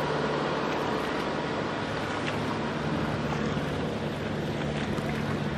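Steady wind noise on the microphone over a low hum, with a few faint splashes of feet wading through shallow muddy water.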